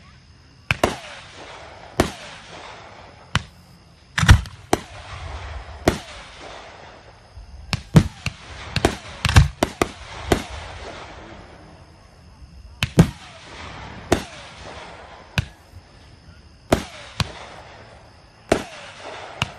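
Aerial fireworks shells bursting one after another, about twenty sharp bangs at irregular intervals, with crackling and hiss from the stars between them; two of the bangs, a few seconds in and about halfway through, are much louder than the rest.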